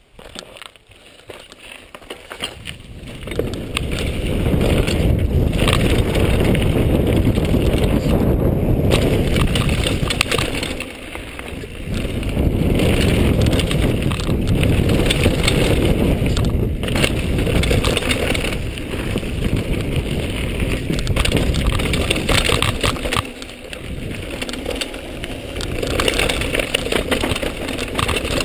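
Mountain bike descending a hardpacked dirt and gravel trail: a steady rush of tyre rumble and wind on a chest-mounted camera, with knocks and rattles from the bike over bumps. It builds up a couple of seconds in and eases off briefly twice.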